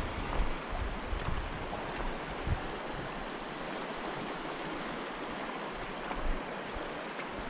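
Shallow mountain stream running over a cobble bed: a steady rushing hiss of water, with a few brief low rumbles of wind on the microphone.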